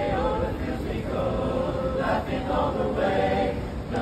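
Street choir singing a Christmas carol, the voices holding notes together in phrases that change about once a second.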